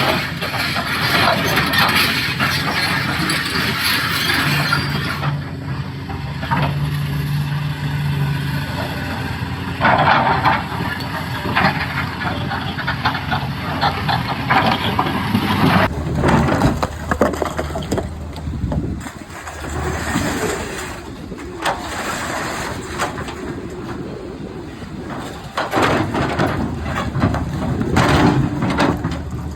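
Doosan DX390 excavator working rock: its diesel engine running under load while the bucket scrapes and knocks against stone, with irregular clatter and grinding throughout.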